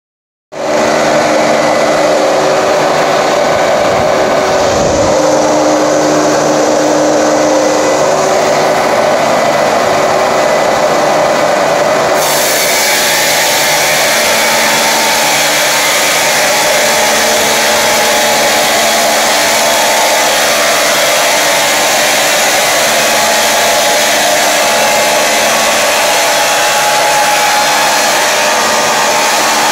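Double-arbour multirip saw, driven by two 30 kW motors, running loud and steady with a constant hum under a dense whir; about twelve seconds in the high hiss grows brighter and stays that way.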